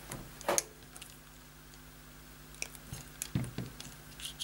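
Wire cutters snipping thin wires, with a few sharp clicks and soft knocks of small hand tools on the workbench.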